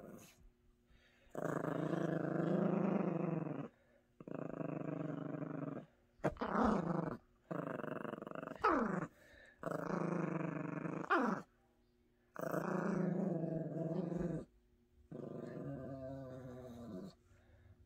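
Yorkshire terrier growling in play over a plush carrot toy: about seven separate growl bouts of one to two seconds each, a few ending in a quick falling note.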